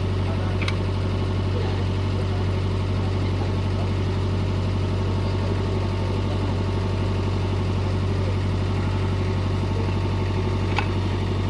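Mitsubishi MS030 mini excavator's diesel engine running steadily at a constant low hum, with no revving. A sharp click sounds about a second in, and another near the end.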